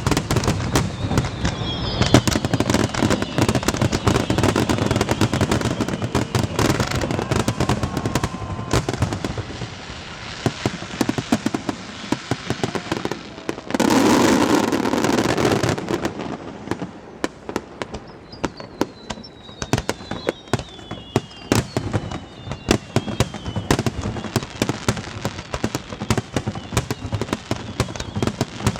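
Fireworks display: dense, rapid crackling and popping of shell bursts, with a louder rushing burst about halfway through lasting a couple of seconds. A thin whistle slowly falls in pitch near the start and again later on.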